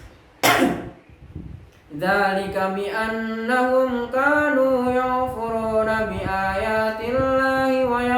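A man chanting Quran recitation in a melodic style, holding long, slowly wavering notes from about two seconds in. Just before that, a short, loud burst of breath.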